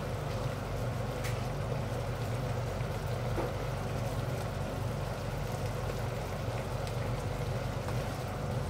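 Coconut-milk stew simmering in a wok on an induction cooktop, under a steady low hum, with a couple of light clicks of a spoon against the pan.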